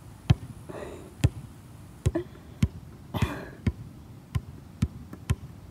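A series of sharp, short thumps at an uneven pace, roughly one every half second to a second. There is a brief breathy voice sound about a second in and again about three seconds in.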